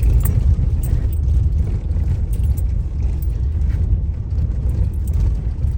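A car on the move: a steady low rumble of engine and tyres on the road, with faint light rattles throughout.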